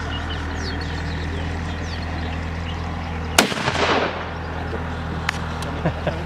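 .470 Nitro Express double rifle fired once, a single sharp shot about three and a half seconds in followed by about half a second of rolling echo. A few light clicks near the end.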